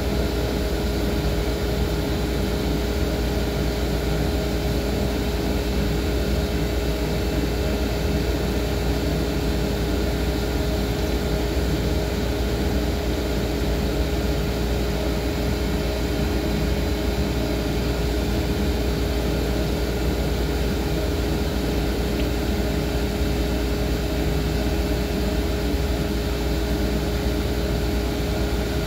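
A steady machine hum with one constant tone over a low rumble, while a stream of water sprays into the tub.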